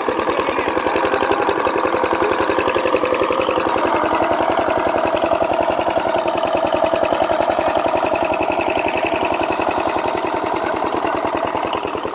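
Single-cylinder diesel engine of a water pump running at a steady speed with an even, rapid chug, driving the pump that drains the pond.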